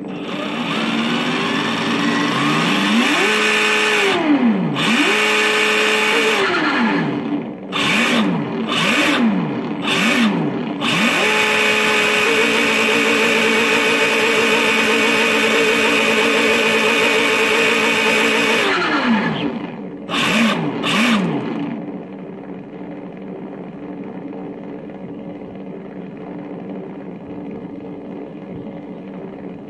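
Engine sound effect revving: the pitch climbs and falls several times with quick blips, holds high for about six seconds with a slight warble, then after two more short blips settles to a quieter steady idle.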